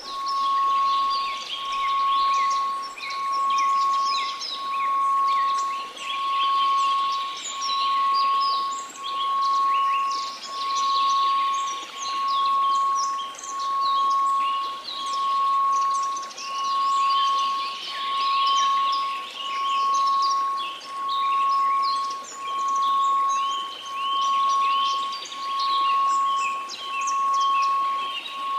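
A steady 1098 Hz sine tone swelling and fading about every second and a half, over a background of many birds chirping.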